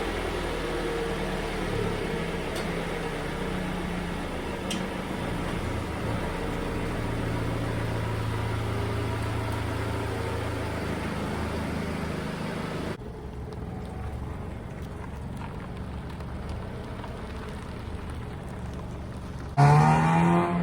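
Compact car engine idling steadily, running on a freshly installed battery; about two-thirds of the way through it cuts off abruptly to a quieter hum. Near the end comes a short, loud pitched sound.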